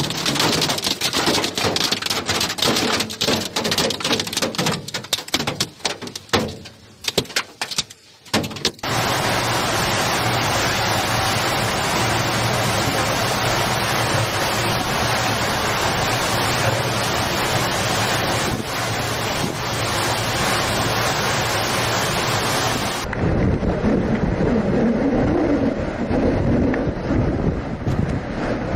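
Storm noise of heavy rain and wind. For about nine seconds it is choppy rain on a vehicle with sudden dips, then an even, dense noise of driving rain and wind, and near the end a duller gusting wind buffeting the microphone.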